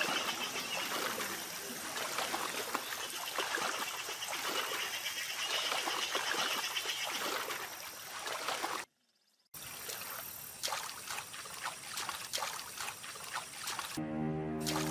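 Water splashing and sloshing as a tiger wades and swims through a pond. There is a brief break of silence about nine seconds in, and music starts near the end.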